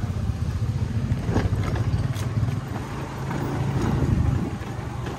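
Wind buffeting the microphone, a low irregular rumble that dips a little twice, with faint voices in the background.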